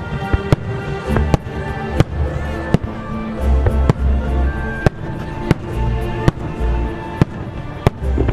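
Fireworks bursting in the sky, about a dozen sharp bangs at uneven intervals with deep rumbling echoes between them, while music plays over them.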